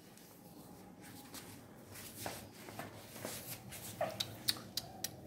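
A German Shepherd puppy handled on a tiled floor: scattered light clicks and rustles, with a few brief, faint whimpers from the puppy that grow more frequent toward the end.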